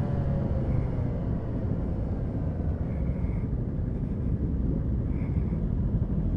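Motorcycle riding through traffic: the engine runs steadily under a heavy low rumble of wind and road, as heard on the bike itself, its pitch easing down slightly at the start.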